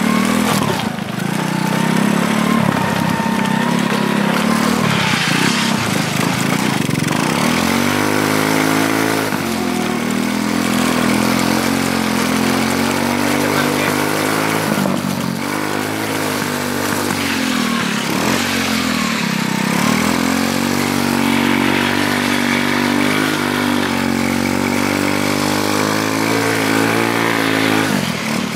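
Go-kart engine on a motorized tricycle running under way, its pitch dipping and climbing again several times as the throttle is eased and reopened.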